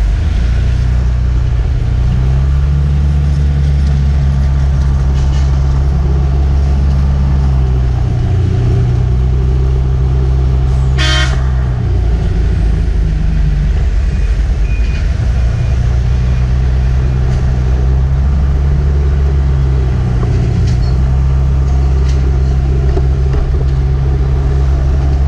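Steady low drone of a vehicle driving along a road, its pitch shifting now and then. A vehicle horn honks once, briefly, about eleven seconds in.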